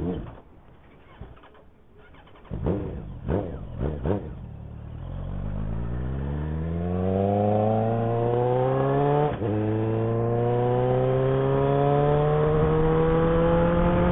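Loud motorcycle engine with its slip-on muffler removed, the exhaust running open. It gives a few short revs, then pulls away with the pitch rising steadily, dips at a gear change about nine seconds in, and climbs again.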